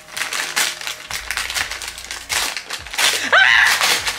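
Gift wrapping paper being torn and crumpled as a wrapped present is opened. A short pitched squeak, bending in pitch, stands out about three seconds in.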